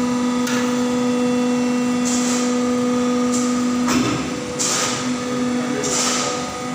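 120-ton die casting machine running: a steady whine from its hydraulic system, with short hisses about every second and a half and a clack about four seconds in, where the whine briefly drops.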